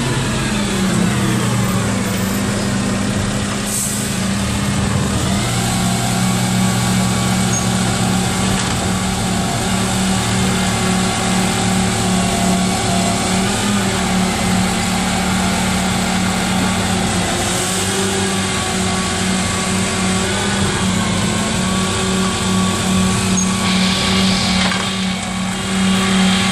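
Dennis Eagle refuse lorry's diesel engine running steadily while wheelie bins are emptied at the rear, its note falling in the first couple of seconds. There is a sharp click about four seconds in and a short hiss of air near the end.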